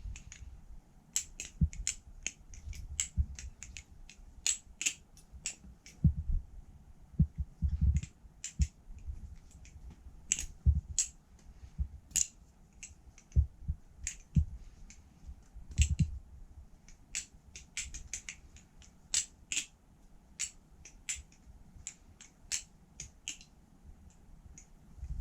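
Balisong (butterfly knife) being flipped through tricks: quick, irregular metallic clicks and clacks as the handles swing open and shut against the blade and pins, several a second, with some duller low knocks among them.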